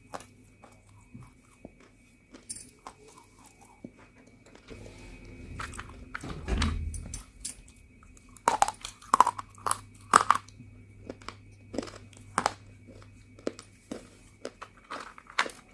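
Crisp crunching as pieces of roasted multani mitti (fuller's earth clay) are bitten and chewed: scattered sharp crackles, a dull low thump around six to seven seconds in, and the loudest run of crunches from about eight to ten and a half seconds in.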